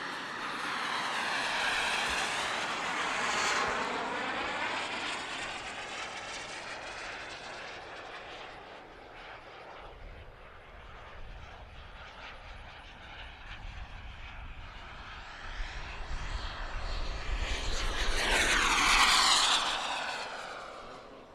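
Turbine engine of a radio-controlled model jet flying past twice: a rushing whine that swells about two seconds in, fades, and comes back louder near the end, sweeping in pitch as the jet passes.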